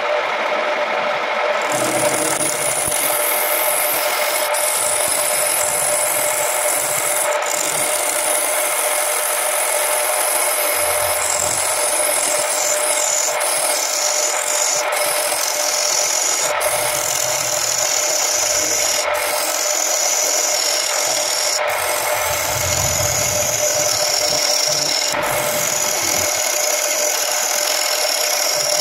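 Wood lathe running with a steady motor hum while a turning tool scrapes and cuts the spinning wood of a bowl blank. The cutting noise is steady and breaks off for an instant several times as the tool briefly leaves the wood.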